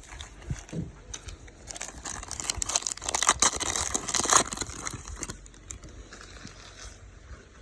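A Donruss baseball card pack's wrapper being torn open and crinkled, a dense crackling rustle for about four seconds, then quieter.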